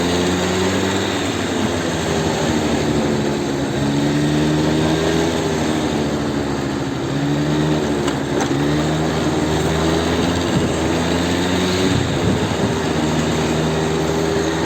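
An engine running, its pitch stepping up and down every second or two, over a steady rushing noise.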